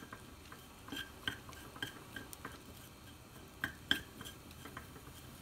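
Chopsticks stirring broccoli in a small metal pan: irregular light clicks and taps against the pan, each with a short ring, the loudest a little before four seconds in.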